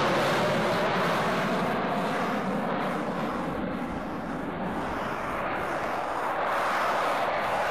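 Steady jet noise from a KC-135 Stratotanker's four turbojet engines at takeoff power as it lifts off and climbs away, easing a little about four seconds in before building again.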